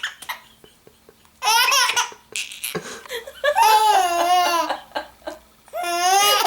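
A baby laughing hysterically in bouts of belly laughter, high-pitched and wavering. There is a short burst early, a long drawn-out laugh in the middle, and another starting near the end.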